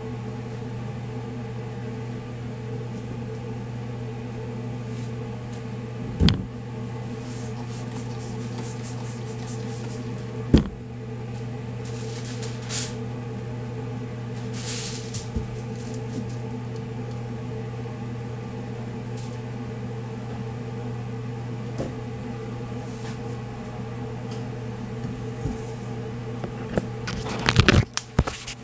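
Steady electric hum of commercial kitchen equipment, a fan-driven cabinet smoker and ventilation, under the handling of a smoked brisket: two sharp knocks, then aluminium foil crinkling as the meat is laid on it. Near the end a cluster of loud bumps and rattles as the phone is picked up and moved.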